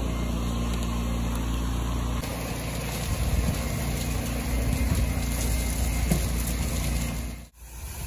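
Pressure-washing rig's engine running steadily, a low drone with hose spray hiss over it. The sound changes about two seconds in and drops out briefly near the end.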